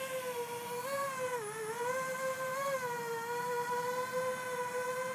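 JME quadcopter drone's propellers whining in flight, one pitch with overtones that dips and rises a few times in the first three seconds as the motors adjust, then holds steady.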